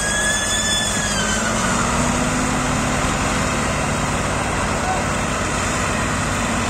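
Diesel tractor engines running hard under load as two tractors pull a heavily loaded trolley. A high whistle sounds during the first second or so.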